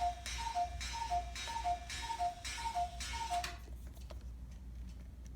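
A quick two-note tick-tock pattern, a higher note then a lower one, repeating just under twice a second with a hiss over each pair; it stops about two-thirds of the way through.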